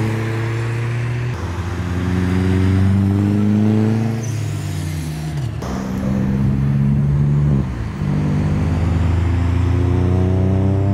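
Toyota Chaser's engine accelerating hard through the gears: the pitch climbs, drops at each of three upshifts and climbs again.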